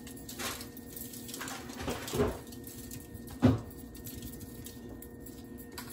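Grated Parmesan cheese shaken from a shaker jar onto green beans on a foil-lined pan: a soft patter with several short taps, the loudest about three and a half seconds in.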